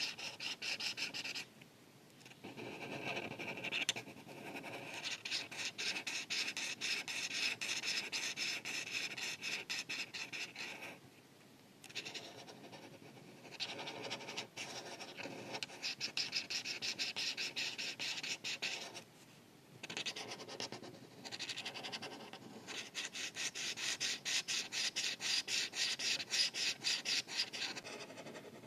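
Art marker tip scratching across paper in rapid back-and-forth colouring strokes, stopping briefly three or four times.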